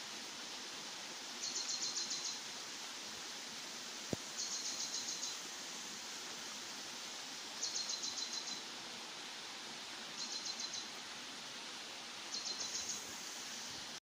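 Steady rush of flowing water, with a high trilled call repeated five times, one every two to three seconds, each lasting under a second. A single sharp click sounds about four seconds in.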